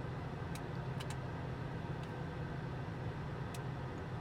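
2015 Audi A3's 1.8T turbocharged four-cylinder engine idling, a steady low hum heard from inside the cabin, with a few faint clicks.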